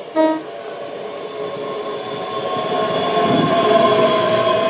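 ScotRail Class 385 electric multiple unit sounding a brief horn toot about a quarter second in, then running along the platform with a rumble of wheels and a steady electric whine that grows louder as the carriages go by.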